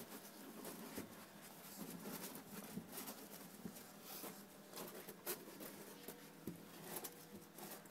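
Faint, scattered rustling and small clicks of a litter of newborn puppies shuffling about while nursing.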